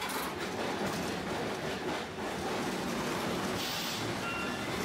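Tosaden 600-series streetcar running on street track, heard from inside the car: steady wheel-on-rail and running noise. A few faint high tones come in near the end.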